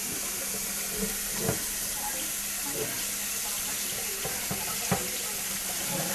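Kitchen faucet running steadily into a sink, with a few light knocks about a second and a half in and again near five seconds.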